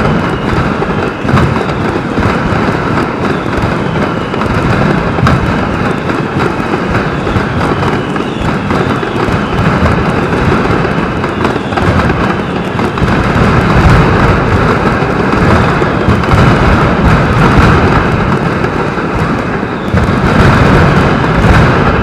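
Mascletà firecrackers (trons) going off in a dense, unbroken barrage of rapid detonations, growing louder about two-thirds of the way through and again near the end. Recorded through an action camera's waterproof housing.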